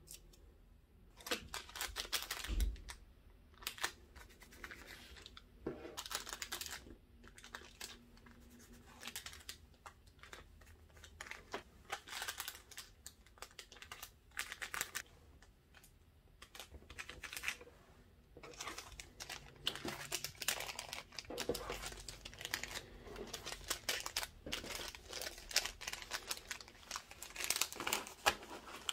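Clear plastic packaging sleeves crinkling and rustling in irregular bursts as they are filled, handled and stacked.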